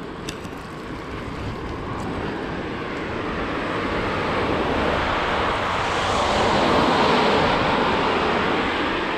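Car passing on a wet road: the hiss of its tyres on the wet surface swells to a peak about seven seconds in and then eases, over a low rumble of wind on the microphone.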